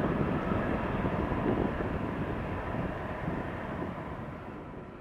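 Airbus A330 jet engines heard from behind as the airliner rolls away down the runway: a steady rushing engine noise that gradually fades as it draws away.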